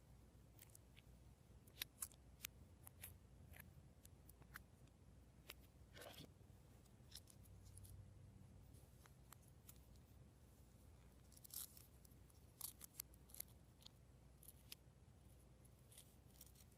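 Faint, scattered clicks and little crackling pops of glossy slime being worked by hand, with a denser run of sharper pops about twelve seconds in.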